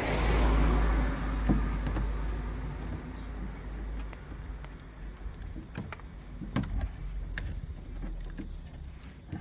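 A loud low rumble that swells at the start and fades away over about four seconds, followed by a handful of sharp, light clicks and knocks spaced a second or so apart.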